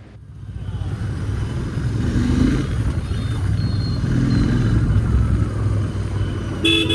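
Royal Enfield Continental GT 650 parallel-twin engine getting louder as the motorcycle pulls away and rides on steadily. A vehicle horn toots briefly near the end.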